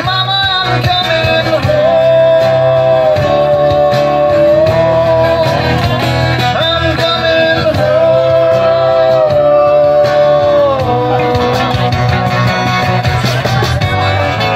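A live acoustic band playing: acoustic guitars and keyboard, with a singer holding long, slightly wavering notes over the accompaniment.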